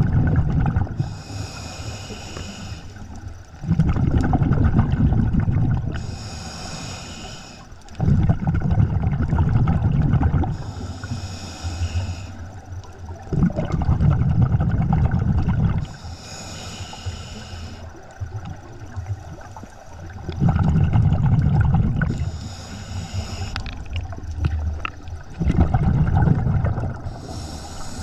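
Scuba diver breathing through a regulator underwater: a short hiss as each breath is drawn through the demand valve, then a longer low rush of exhaust bubbles. About six breaths, one roughly every five seconds.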